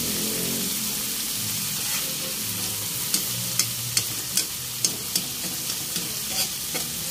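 Corned beef with onions and garlic sizzling in hot oil in a wok, a steady hiss. From about three seconds in, a scatter of sharp clicks and crackles joins it.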